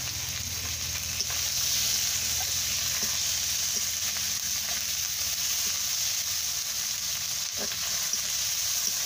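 Bombay duck fish sizzling steadily as it fries lightly in hot mustard oil in a karahi, with a metal spatula stirring and scraping through it.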